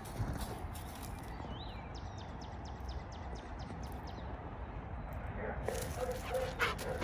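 A dog's short, low pitched vocal sounds come in broken pieces over the last second or so, over a steady low rumble.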